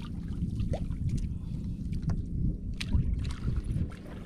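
Low, steady rumble of wind on the microphone and water moving around a small outrigger boat, with a few light knocks.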